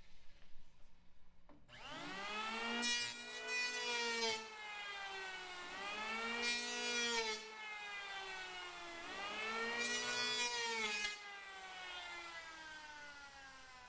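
Handheld electric planer shaving down a high spot on a wooden hatch coaming: three passes, each with the motor whining up in pitch, a rasping cut into the wood, then the whine slowly winding down.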